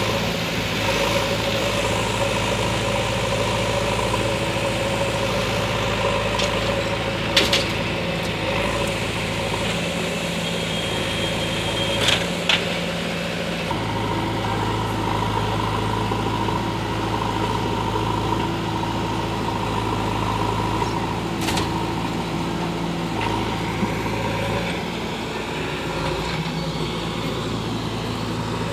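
JCB 3DX backhoe loader's diesel engine running steadily under work, its note shifting a few times, with a few short sharp clanks.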